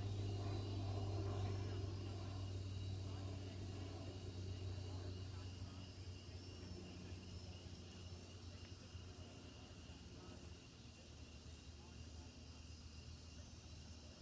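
Small quadcopter drone's steady hum gradually fading. Crickets chirp faintly behind it.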